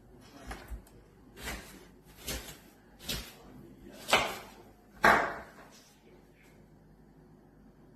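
A series of sharp knocks and clatters, roughly one a second, growing louder to the two loudest about four and five seconds in, then stopping.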